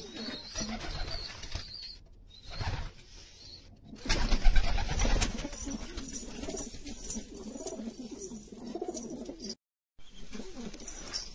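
Domestic pigeons cooing in a loft, with a louder burst of noise about four seconds in. The sound cuts out completely for a moment just before the end, then the cooing carries on.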